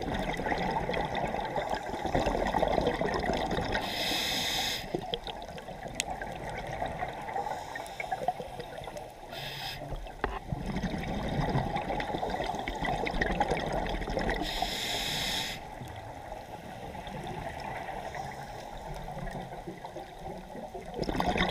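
Scuba diver breathing through a regulator underwater: a short hissing inhale about every five seconds, with bubbling and gurgling of exhaled air between.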